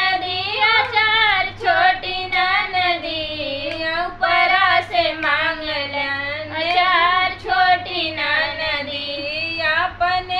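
Women singing a dehati folk song (nach geet) in a rural Hindi dialect, drawing out long, bending notes between lines, with a faint low hum underneath.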